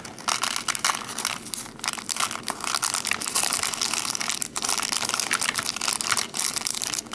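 Small clear plastic bead bag crinkling as it is squeezed and shaken, with tiny plastic beads clicking as they drop into a plastic tray. It is a continuous crackle of fine clicks.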